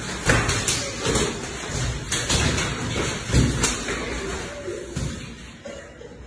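Belts lashing: an irregular string of sharp cracks and slaps as they strike the floor and bodies, mixed with thuds of people stumbling and falling.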